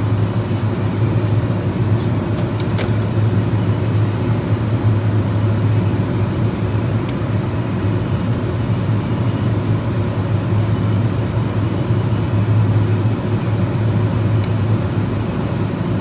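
Steady machinery drone with a strong low hum and a noisy rush above it, unchanging throughout, with a few light clicks from small hand work on top.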